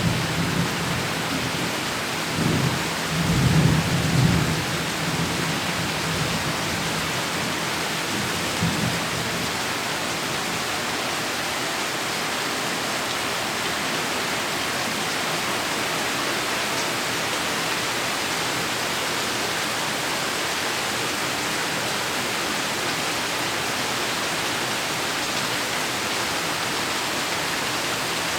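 Heavy rain falling steadily, with low rolling thunder rumbling in the first few seconds and once more briefly about eight seconds in, then steady rain alone.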